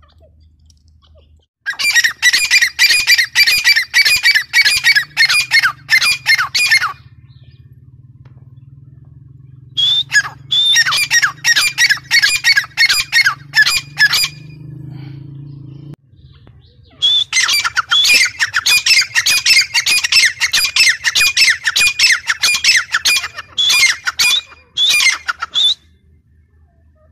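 Grey francolin calling: three loud bouts of rapid, repeated high-pitched calls, about three a second, with short pauses between the bouts.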